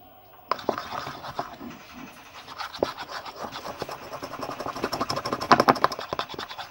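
Spoon stirring and beating runny glue slime mix fast in a bowl: rapid scraping and clicking that starts about half a second in and is loudest near the end.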